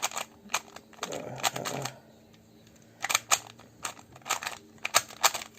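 Plastic Rubik's brand 2x2 cube being turned fast during a timed solve: irregular bursts of clacking turns with short pauses between, the stiff cube being super annoying to turn.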